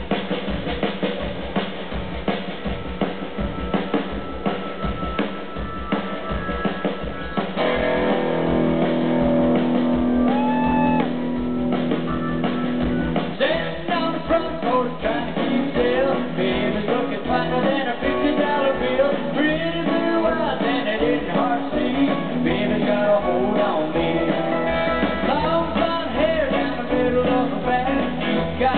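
Live country-rock band: a drum kit keeps a steady beat, held guitar and keyboard chords come in about seven seconds in, and a male lead vocal sings over them from about thirteen seconds in.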